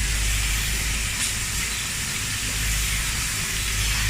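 Dairy milking-shed machinery running: a steady hiss over a low hum.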